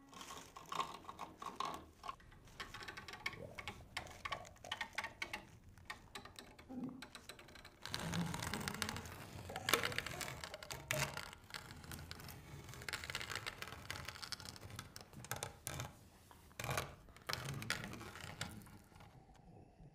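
Faint, irregular clicks and creaks with some rustling, a little louder and busier from about eight to eleven seconds in.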